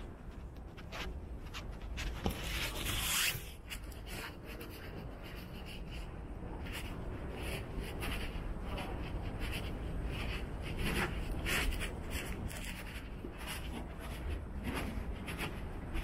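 Soft scuffing and rustling of someone walking on carpet with a handheld phone: light, irregular taps over a steady low room hum, with a brief louder rustle about three seconds in.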